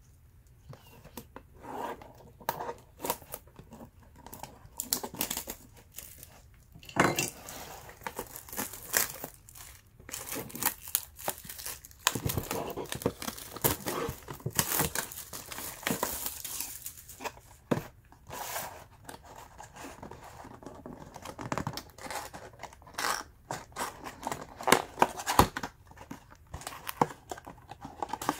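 Packaging of a retail box of trading cards being torn open and handled: irregular tearing, crinkling and rustling, busiest in the middle stretch.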